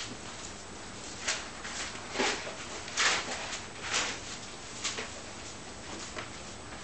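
A string of short scuffs and taps as a puppy is set on a table and its feet are placed: paws and claws on the tabletop and hands on its fur, the loudest about three seconds in.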